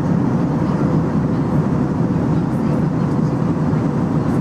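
Steady cabin noise inside an Airbus A321-211 airliner in flight: the low, even drone of its CFM56 turbofan engines mixed with the rush of air along the fuselage.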